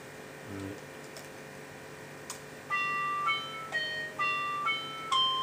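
Synthesized notes from the SuperCollider audio engine running on an Android phone: a played pattern of short enveloped tones, each with a sharp start and a fade, changing pitch about twice a second. It starts about halfway through, after a few clicks of laptop keys.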